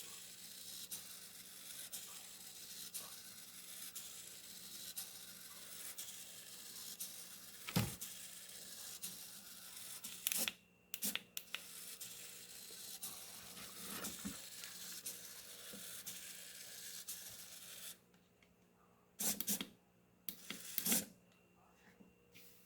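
Small hobby servo motor run by a servo tester in automatic mode, whirring faintly as it sweeps back and forth, with a few sharp clicks and knocks of handling.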